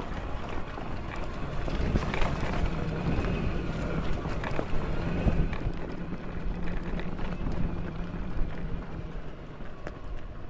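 Dirt bike engine running at a steady low pitch on a downhill ride, with wind buffeting the microphone and scattered knocks.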